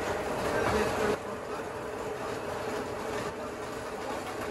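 Electric meat grinder running with a steady motor hum as it minces meat. A louder, rougher stretch in about the first second cuts off suddenly.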